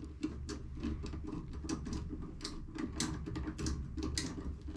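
Hand screwdriver turning hose-clamp screws on fuel hoses, an irregular run of small metallic clicks and ticks, over a steady low hum.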